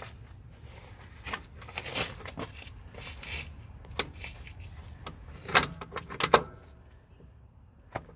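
Scattered clanks and knocks as a new brake shoe on a semi truck's drum brake is worked onto its anchor pin, with a cluster of louder knocks around five and a half to six and a half seconds in.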